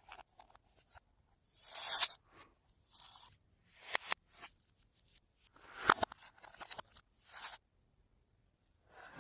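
Fluffy slime being pressed and mixed by hand, in short irregular crackly, sticky bursts with pauses between them. The loudest burst comes about two seconds in.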